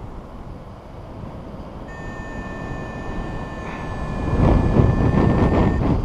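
Wind rushing and buffeting over the microphone of a paraglider pilot's helmet camera in flight, growing stronger about four seconds in. A steady high tone sounds through the middle of it.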